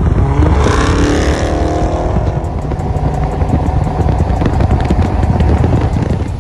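Car engine revving, rising in pitch about a second in, then running loud with a deep rumble.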